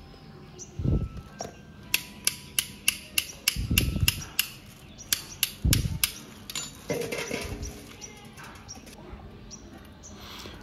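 Metal tractor hydraulic filter parts and tools clinking and tapping against each other and a steel bowl while being cleaned: quick sharp clicks, about three or four a second through the middle, then sparser, with a few dull low thumps.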